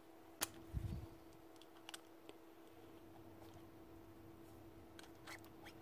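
Metal parts of a Milwaukee M12 CH SDS hammer drill's gearbox clicking as they are handled and taken apart by hand. There is a sharp click about half a second in, then a dull knock, and a few light clicks later on, over a faint steady hum.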